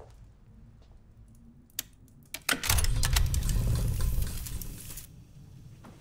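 Film sound effects in a quiet office: a few light clicks, then a loud mechanical rattling clatter about two and a half seconds long that stops abruptly.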